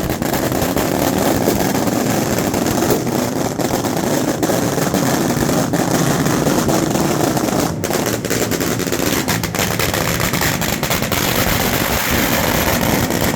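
A long string of firecrackers going off in rapid, unbroken succession, many small bangs running together into a loud crackle that starts and stops suddenly.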